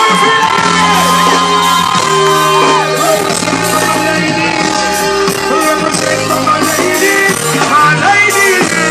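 Live reggae band playing a song intro, with bass notes, drum hits and a voice holding a long high note that breaks off about three seconds in, then yells over the music.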